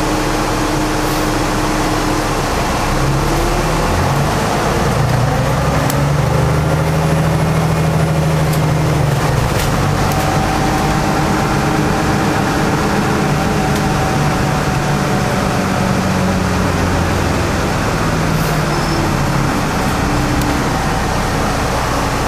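Alexander Dennis Enviro 500 double-decker bus's diesel engine and drivetrain, heard from the lower deck while driving in town. A steady low drone with road noise, and whining tones that rise and fall as the bus speeds up and eases off.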